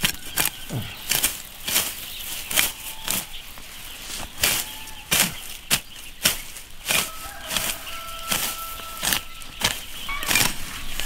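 Hand sickle slashing through dry weed stalks, each cut a sharp swish with rustling and snapping of the dead stems, repeated irregularly about once a second as the patch is cleared by hand.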